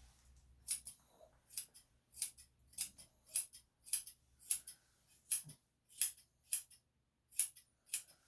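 Grooming scissors snipping a Yorkshire Terrier's hair: a steady run of about a dozen short, crisp cuts, a little under two a second.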